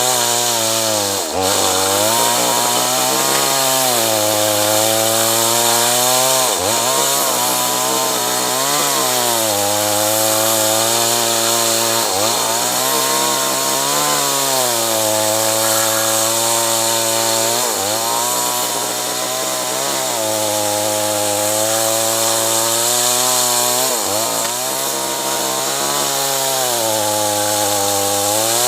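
Two-stroke chainsaw running at high revs while cutting acacia timber. The engine pitch sags and climbs back about every five to six seconds as the chain bites into the wood and frees up.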